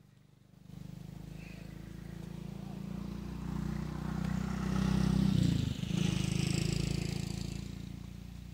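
A motor vehicle's engine passing by. It grows louder as it approaches, is loudest about five and a half seconds in, where its pitch drops as it goes past, and then fades away.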